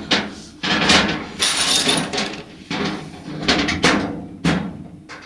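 Irregular hard knocks and clatter, about ten sharp hits, from flat-pack furniture parts being handled and knocked together during assembly.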